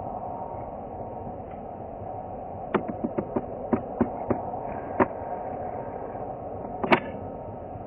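Distant Dassault Falcon 20 business jet taxiing, its turbofan engines a steady whine and hiss. A run of about eight sharp, irregular clicks starts a little under three seconds in, and one louder click comes near the end.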